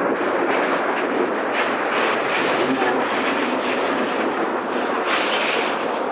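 Garden hose on a straight-stream nozzle setting spraying water onto concrete: a steady, even rush of spray.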